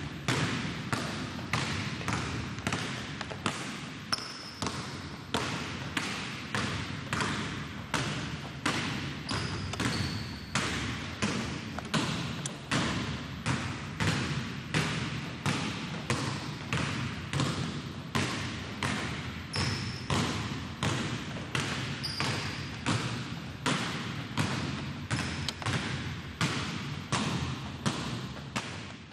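Two basketballs dribbled on a hardwood gym floor: a steady run of bounces, about two a second, in a full-court two-ball dribbling drill with a behind-the-back move at each turn.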